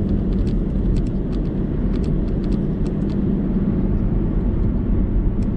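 Steady road and engine noise of a moving car heard from inside the cabin.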